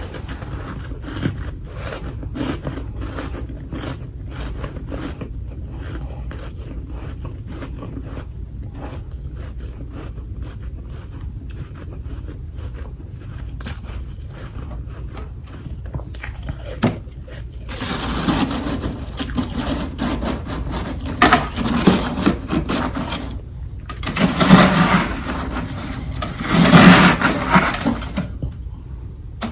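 Frozen humidifier freezer frost crunching as it is chewed close to the microphone: a run of short crisp crunches, then three louder, denser spells of crunching in the latter part.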